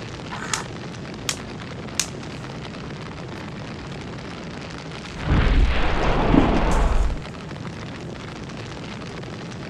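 An explosion-and-fire sound effect: a loud rumbling blast lasting about two seconds, starting about five seconds in, over a steady hiss, with a few sharp clicks in the first two seconds.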